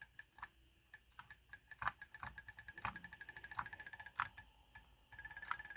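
Hall-sensor-triggered pulse motor running after switch-on: its drive coil pulsing as rapid, even ticks with a high tone that quicken and merge into a steady high hum about five seconds in. A few louder clicks stand out along the way.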